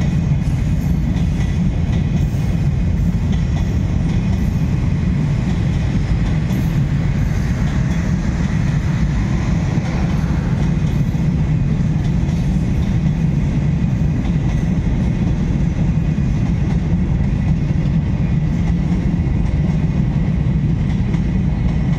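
Passenger coaches of an intercity express train rolling past as it pulls into a station: a steady, continuous rumble of steel wheels on the rails.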